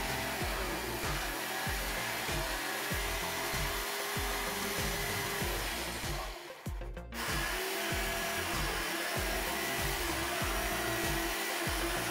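Electric jigsaw cutting a curve in plywood: the motor runs with a steady whine while the blade rasps through the wood. It stops for about half a second a little past the middle, then starts again and carries on cutting.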